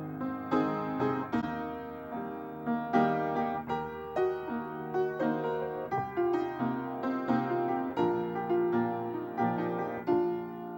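Solo piano playing a slow piece, notes and chords struck and left to ring.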